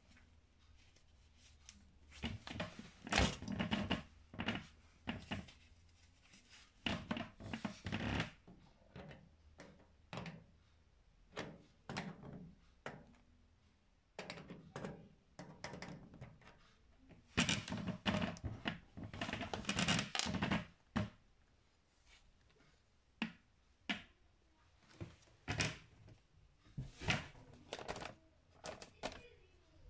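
Irregular clicks, taps and knocks of a screwdriver working the terminal screws on an electric cooker's connection block, with cable being handled. The clatter comes in bursts with short quiet gaps between them.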